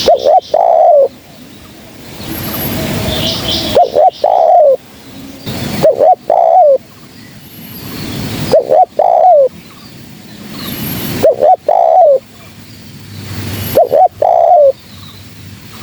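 Spotted dove (terkukur) cooing, six repeated phrases about two to three seconds apart. Each phrase is two short notes followed by a longer, falling coo. A noisy hiss swells up between the calls.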